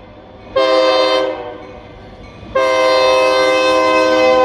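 Air horn of an EMD SD40 freight locomotive (Escanaba & Lake Superior No. 502) sounding the end of a grade-crossing warning: a short blast about half a second in, then a long blast starting about two and a half seconds in. Between the blasts the train's running noise is heard.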